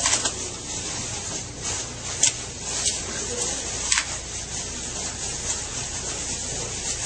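Layers of plastic wrap stretched across a doorway crinkling and crackling as someone pushes and tears at them, with a couple of sharper pops about two and four seconds in.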